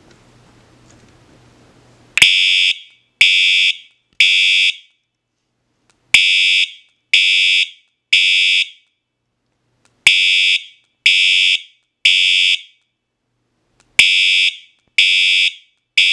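Cerberus Pyrotronics MTL-S multi-tone fire alarm horn sounding its temporal-3 horn pattern: groups of three short, loud blasts with a pause between each group, starting about two seconds in and repeating four times. Each group opens with a sharp click.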